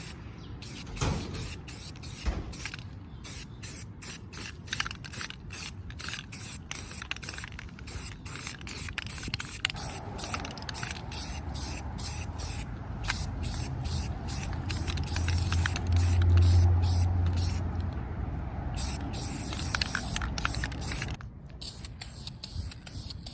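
Pressurized spray hissing in many short bursts, with a longer steadier spell in the middle that stops shortly before the end.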